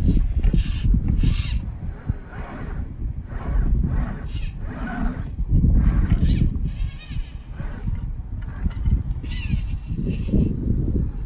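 An Axial SCX10 1/10-scale RC crawler's electric motor and gear drive whining in many short bursts, the pitch now and then rising or falling with throttle, as it crawls over rocks. Under it runs a steady low rumble.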